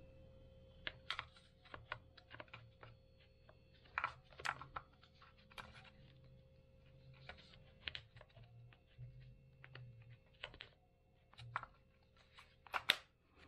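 Irregular clicks and taps of hard plastic handle and housing pieces of a Minelab CTX 3030 metal detector being handled and pressed together, with a louder pair of clicks near the end.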